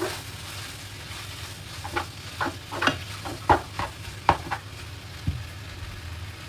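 Maggi instant noodles sizzling as they are stir-fried in a frying pan. A run of sharp knocks and scrapes comes from the utensil striking the pan from about two seconds in, with one more knock near the end.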